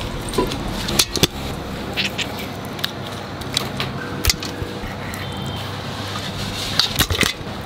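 Raw quail being cut with a small kitchen knife over a large metal pot: a few sharp clicks and knocks, a pair about a second in, one in the middle and a cluster near the end, over a steady background hum.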